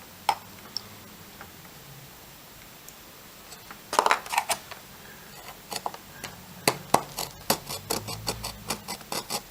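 Fingernail file scraping the edge of a circuit board in short strokes: a few quick strokes about four seconds in, then a steady run of about three strokes a second from about seven seconds in.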